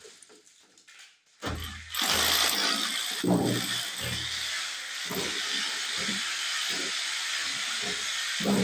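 Cordless drill starting about a second and a half in and running steadily as it bores into the edge of a wooden door.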